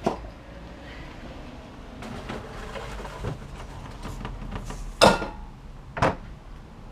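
Several loose knocks and clunks of gear being handled and set down. The loudest comes about five seconds in with a short ringing tail, and another follows about a second later.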